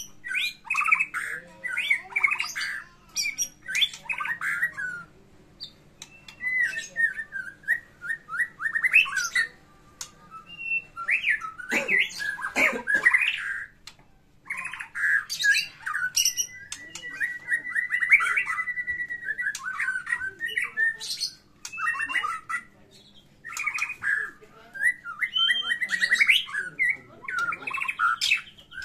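White-rumped shama (murai batu) singing hard in fighting mode: rapid bursts of harsh, scratchy phrases and trills with short pauses between, including a long rattling trill about two-thirds of the way through.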